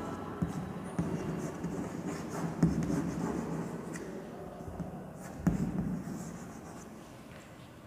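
Chalk writing on a blackboard: scratchy strokes of the chalk across the board, with a few sharper taps as the chalk strikes it.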